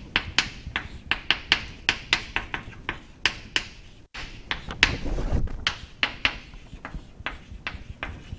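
Chalk writing on a chalkboard: a quick, irregular series of sharp taps and short scratches as words are written, with a brief low rumble about five seconds in.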